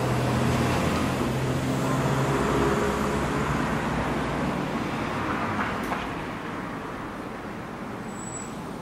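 A motor vehicle's engine running with a steady low hum that fades out about five seconds in, leaving a steady hiss of street noise.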